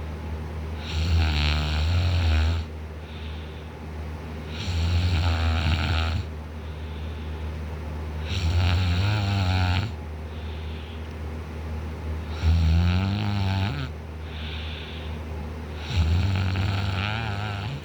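A man in deep sleep snoring loudly through a wide-open mouth. Five heavy snores come about every four seconds, each lasting a second or more, with quieter breaths between them.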